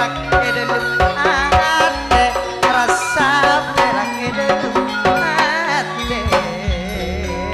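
Live folk-style band music: a steady hand-drum beat under an ornamented lead melody that wavers with deep vibrato.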